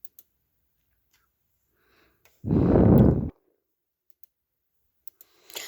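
A person's loud exhale, a sigh or breath blown onto the microphone, lasting just under a second about two and a half seconds in. A few faint clicks sound around it.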